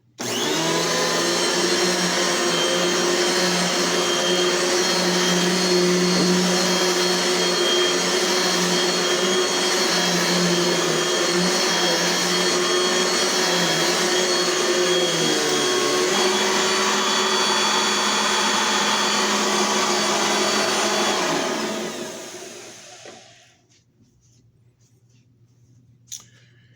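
Dirt Devil Light vacuum cleaner switched on and running at a steady high whine. Its pitch shifts slightly about two-thirds of the way through. It is switched off near the end and the motor winds down over about two seconds.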